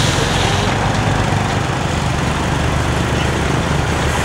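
Heavy truck's diesel engine running steadily, a constant low drone with no change in pitch or level.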